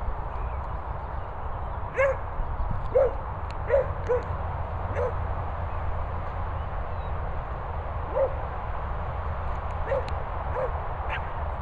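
A dog yipping and barking in play: short, high yelps, a quick run of them about two to five seconds in and a few more later, over a steady low rumble.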